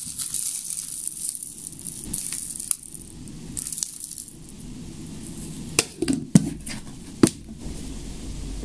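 Granular black-powder lift charge poured in short spells from a paper cup into a paper shell casing, a dry rushing trickle heard three times in the first four seconds. A few sharp clicks and knocks come later, as the casing and shell are handled.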